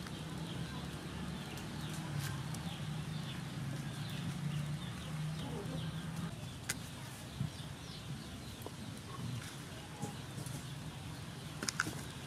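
Outdoor ambience: faint bird calls and a low steady hum, with a few sharp clicks.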